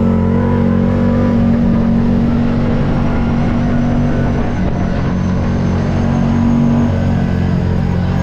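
Off-road vehicle engine running steadily at a held speed, close by and loud.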